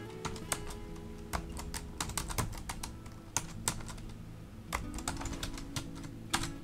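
Typing on a computer keyboard: irregular key clicks, some in quick runs, over quiet background music with steady held notes.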